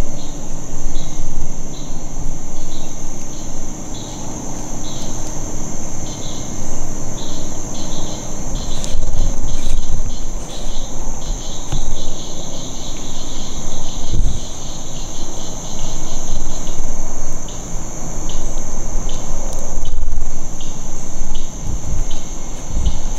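Insects calling: a steady high-pitched drone with rhythmic chirps below it, repeating about every half second and merging into a near-continuous trill for a few seconds around the middle. An uneven low rumble runs underneath.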